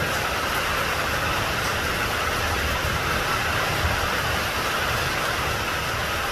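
Steady rain falling, an even hiss with a low rumble beneath, unchanging in level.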